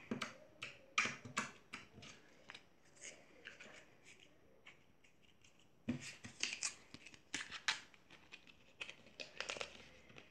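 Slime being squeezed and kneaded by hand, giving quick sticky clicks and small pops in two runs, with a quieter pause of a few seconds between them.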